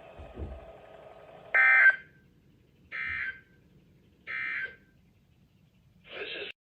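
Three short bursts of warbling digital data tones, about a second and a half apart with the first the loudest: the EAS/SAME end-of-message code sent by NOAA Weather Radio after a warning. A brief buzzy burst follows near the end.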